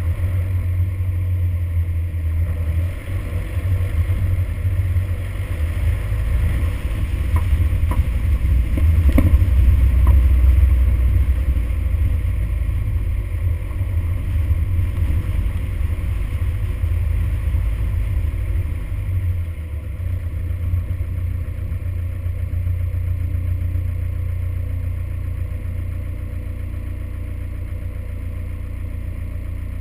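Toyota Hilux driving on a gravel track: a steady, low, muffled rumble of engine and tyres, with a few clicks around eight to ten seconds in. It is loudest around ten seconds in and grows quieter over the last ten seconds as the truck slows.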